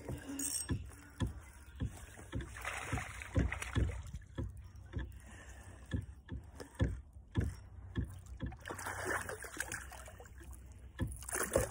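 Spinning reel being cranked to retrieve a lure, with many irregular small clicks and knocks from the reel and rod handling.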